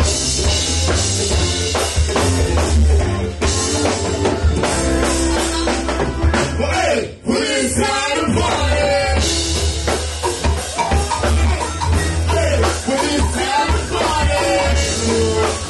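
Live band playing with several vocalists singing into microphones over electric guitar and a drum kit. The music breaks off for a moment about seven seconds in, then carries on.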